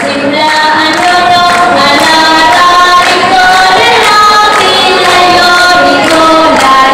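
Group of voices singing a slow melody in unison, holding each note before stepping to the next.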